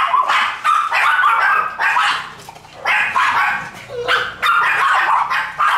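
A dog barking and yelping repeatedly, a fast run of sharp, high barks with brief gaps between them.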